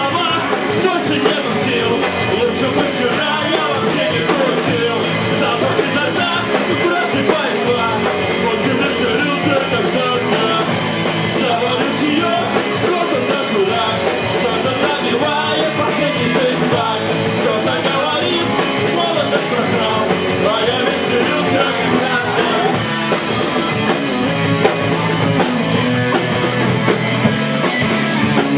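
Pop-punk band playing live and loud: electric guitar, bass guitar and drum kit, with a singer's voice.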